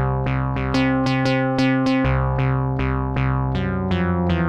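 Studio Electronics SE-1 analog monosynth playing a dry bass sequence: short low notes about three or four a second, each starting bright and quickly dulling, the pitch stepping between a few low notes.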